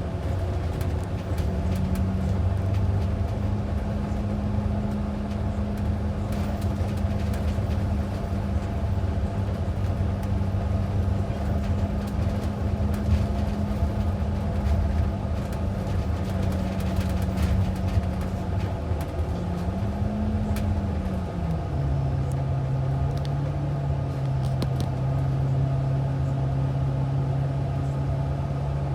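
Bus engine and drivetrain running steadily, heard from inside the passenger cabin, with small rattles and clicks from the interior. About two-thirds of the way through, the engine note rises briefly, then settles at a lower pitch.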